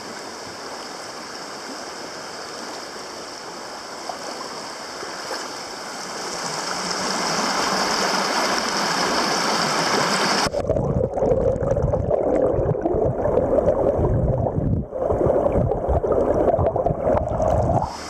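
Shallow river water rushing and gurgling around a metal detector coil swept through it while wading, growing louder after a few seconds. About ten seconds in, the sound turns suddenly muffled and deep as the microphone goes under water, with a steady low churning and a brief drop near the end.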